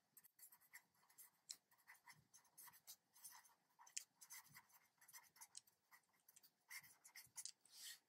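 Faint scratching of a pen on paper as words are written out by hand: a string of short, irregular strokes.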